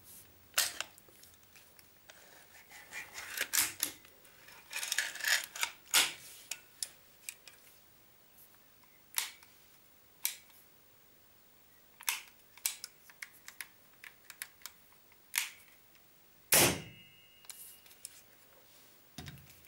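Clicks, taps and scraping of a Stoeger RX20 air rifle's metal action and trigger unit being handled, with a cluster of scraping a few seconds in. One louder knock near the end leaves a brief metallic ring.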